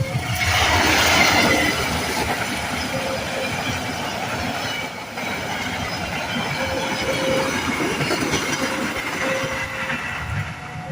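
Train passing over a railway level crossing, its wheels and cars rolling by; loudest a second or two in, then running on steadily.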